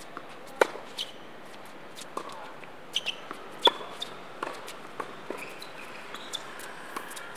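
Tennis rally on a hard court: sharp pops of racket strings striking the ball, the loudest about half a second in and again near the middle, with fainter ball bounces and quick footsteps between them, about a dozen impacts in all.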